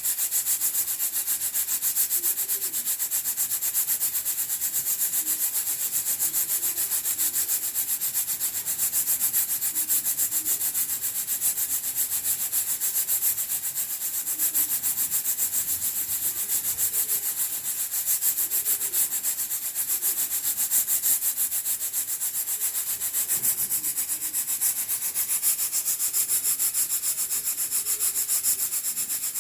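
Hawkins pressure cooker venting steam through its pressure regulator weight: a steady hiss with a fast flutter, the cooker's whistle that shows it has reached working pressure.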